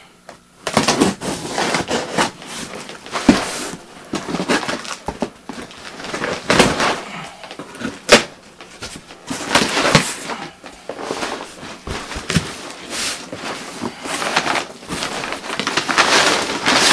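Cardboard box being opened and its packing handled: irregular rustling, tearing and crinkling of cardboard and plastic, with scattered clicks and knocks and one sharp crack about eight seconds in.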